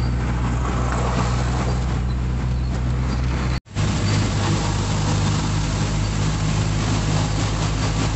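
Steady engine and road drone heard from inside a moving vehicle's cabin. The audio drops out for an instant about three and a half seconds in, then a similar drone carries on.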